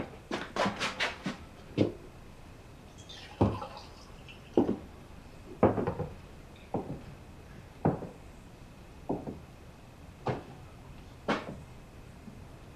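Footsteps on a hard floor: a quick run of steps at the start, then slow, unhurried steps about one a second.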